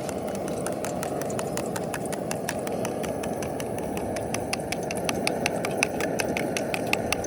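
Quick sharp tapping, irregular at first and settling into a regular rhythm of about six strikes a second after the first few seconds. It plays over a steady low rumble.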